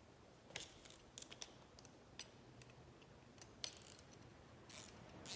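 Scattered sharp clicks and light clatter of small metal tool parts being handled: a belt-sander arm being fitted and clamped onto a cordless cut-off tool.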